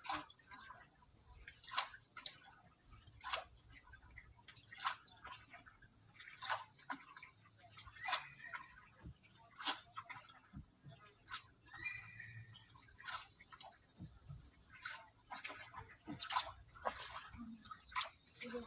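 Steady high-pitched drone of insects in a mangrove forest, with a paddle stroke splashing in the water about every second and a half.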